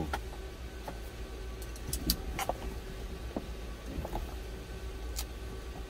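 Steady low hum in a truck cab, with a few short clicks and light handling noises scattered through it, mostly between about one and a half and two and a half seconds in and once near the end.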